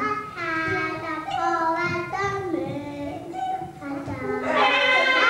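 A high singing voice carries a slow melody in long held notes, stepping from pitch to pitch, and grows louder near the end.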